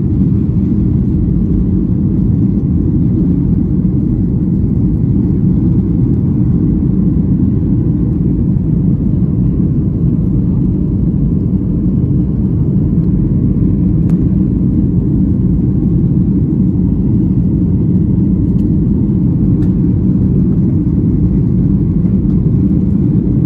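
Steady, loud engine rumble of a Boeing 737 jet airliner as heard inside the passenger cabin, with the engines at high thrust during the climb just after take-off.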